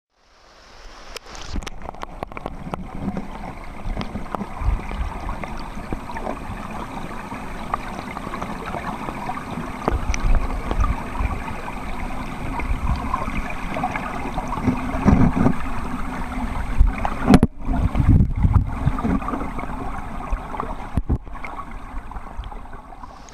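River current heard from a camera held underwater: a muffled rushing and gurgling with frequent low knocks and thumps, fading in at the start, with the heaviest thumps past the middle.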